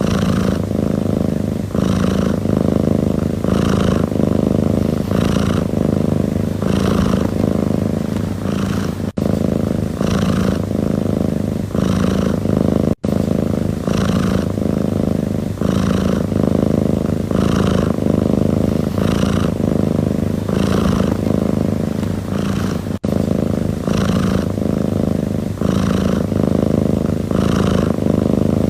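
A domestic cat purring steadily, the purr swelling and easing with each breath about once a second. The sound drops out for a split second three times.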